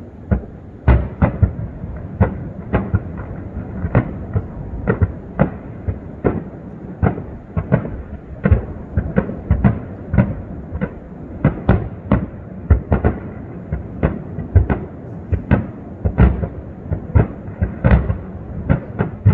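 Aerial fireworks shells bursting in a rapid barrage, about two booms a second, each boom echoing across the lake.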